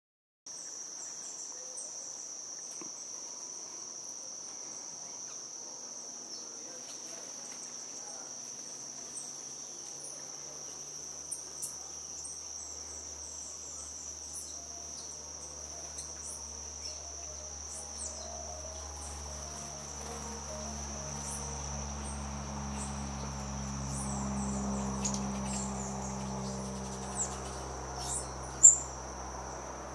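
Steady, high-pitched insect trill of a cricket-type insect, with short high chirps scattered through it. A low droning hum builds in behind from about a third of the way in, and a sharp tick sounds near the end.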